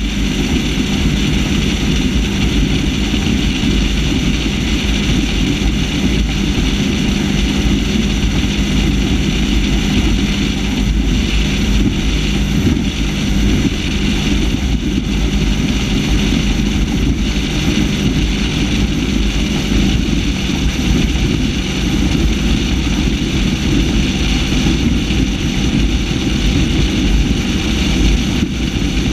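Mercruiser 496 HO big-block V8 of a Warlock 25 SXT catamaran powerboat running steadily at speed, a constant engine drone mixed with the rush of wind and water.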